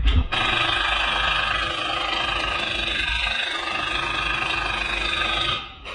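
A knock, then a loud, steady mechanical noise like a running machine or air tool that holds even for about five seconds and cuts off abruptly near the end.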